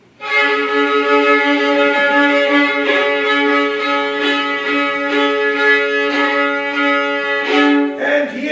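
Violin playing slow, long held notes, starting abruptly just after the beginning.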